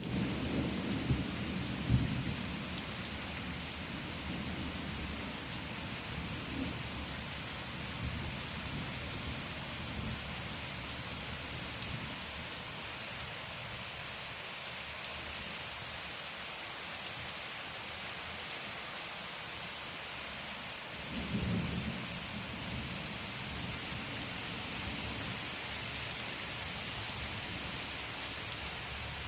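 Steady rain falling, an even hiss throughout, with low rumbles swelling in the first couple of seconds and again about two-thirds of the way through.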